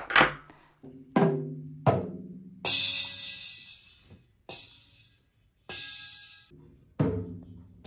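A child's toy drum kit struck one hit at a time with ball-tipped sticks. A few short drum hits come first, then three ringing toy-cymbal crashes, then another drum hit near the end.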